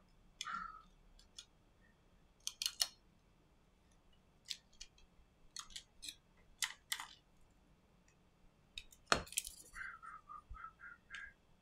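Small, scattered clicks and taps of metal tweezers and a plastic spudger on the internals of a Redmi Note 9 Pro smartphone as its flex connectors are unclipped and the motherboard is lifted out. A single louder knock comes about nine seconds in, followed by a quick run of short squeaks.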